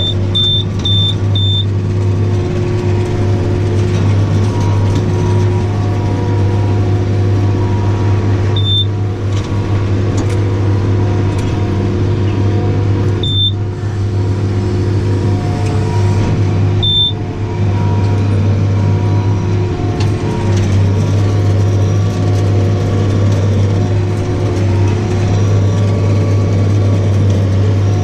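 Tractor engine running steadily under the load of a Welger round baler picking up a heavy swath of green grass, heard from inside the cab. A high electronic beep from the cab controls sounds several times in quick succession at the start, then once each at three moments later on.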